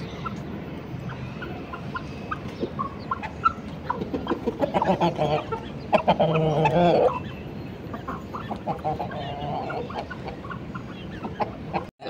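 A flock of chickens clucking and calling, with a louder, longer wavering call about six seconds in.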